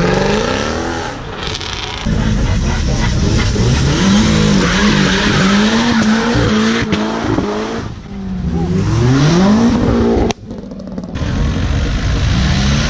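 Car engines revving hard as cars pull away with wheelspin, the front tyres spinning and squealing on the tarmac; the revs rise and fall repeatedly. About ten seconds in the sound cuts off abruptly and another car's engine is heard revving.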